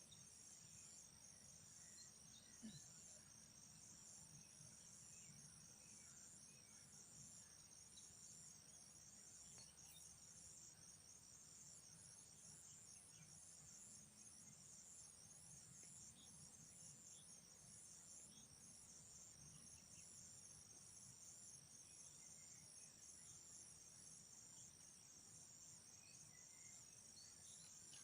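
Insects trilling in a steady, high-pitched pulsing chorus over a faint low rumble.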